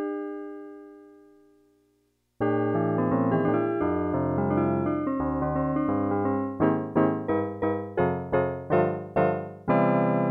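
Yamaha PS-6100 home keyboard being played. A held chord fades away over the first two seconds, and after a short break a new passage starts. In the second half it plays a run of short, repeated chords at about three a second, then a new held chord.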